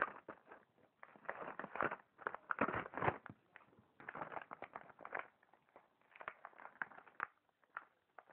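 Crackling and rustling of a doll's cardboard box and plastic packaging being handled and pulled open, in bursts of about a second with short pauses between them.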